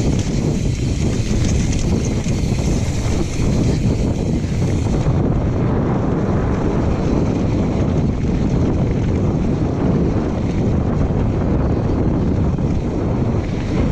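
Wind rushing over a GoPro's microphone and mountain bike tyres rolling over a dirt trail during a fast downhill ride, a steady loud rumble.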